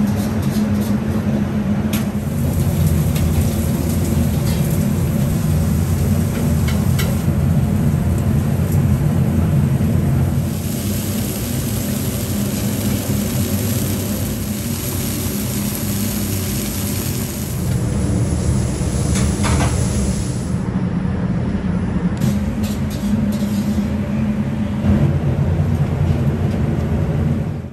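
A steady low drone of commercial kitchen equipment. In the middle stretch a ribeye steak sizzles on a hot flat griddle, with a few sharp clicks of metal utensils.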